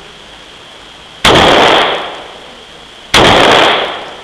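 Two shots from an H&K USP 9mm pistol, about two seconds apart, each ringing on for over half a second in the enclosed shooting booth of an indoor range.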